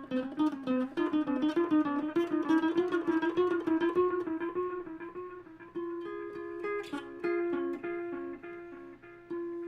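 Guitar played through a Caline Ghost Rain reverb-delay pedal: a run of picked single notes with echoing trails, moving to longer held, ringing notes about six seconds in.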